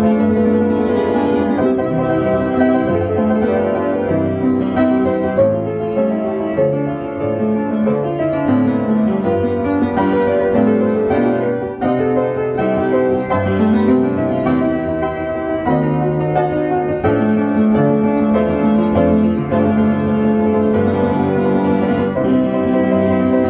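Christman upright player piano playing a QRS paper music roll: continuous piano music with bass notes under a melody.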